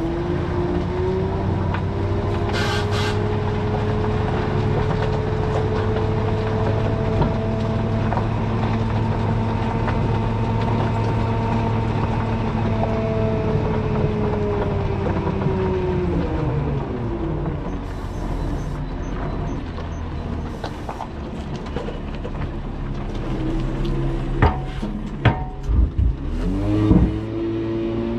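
Scania R580 truck's V8 diesel engine running at steady revs while driving. About sixteen seconds in the engine note falls away; a few sharp knocks follow, and the revs rise again near the end.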